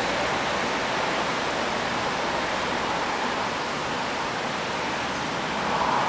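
Steady rain falling on a wet city street, an even hiss that swells slightly near the end.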